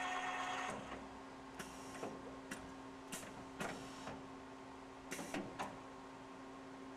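Bar feeder of a Swiss-type CNC lathe pushing bar stock into the machine. A steady hum runs under a brief motor whine in the first second, followed by several sharp clicks at irregular intervals.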